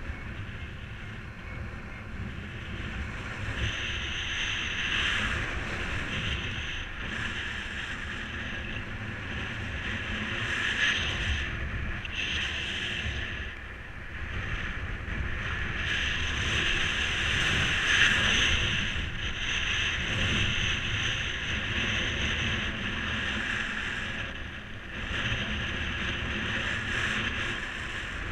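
Airflow rushing over the microphone in paraglider flight, a steady windy hiss with a low rumble that swells and eases with the gusts.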